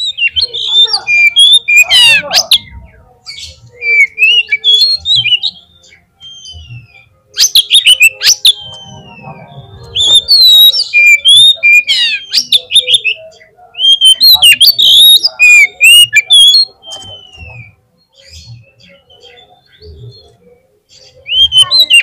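Oriental magpie-robin (kacer) in full, vigorous song: loud, varied phrases of sweeping whistles and rapid trills, in bursts of a few seconds with short pauses between, quieter for a few seconds before the song picks up again near the end.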